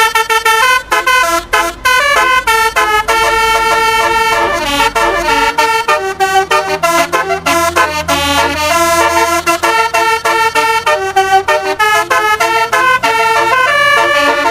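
Telolet horn, a set of multi-trumpet vehicle horns, playing a quick melody of stepping notes a few tenths of a second each, with a low steady hum underneath.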